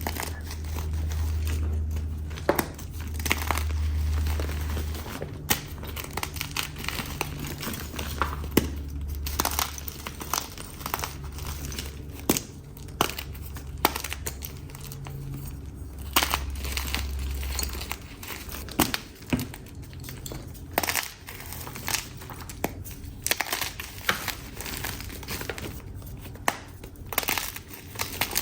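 Blue and yellow chalk being crushed and crumbling: a dense run of irregular crisp crackles and snaps, with a low rumble under them through much of the first two-thirds.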